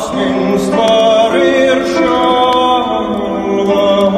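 Background music: slow, layered notes held for a second or so each, shifting to new pitches, with a choir-like quality.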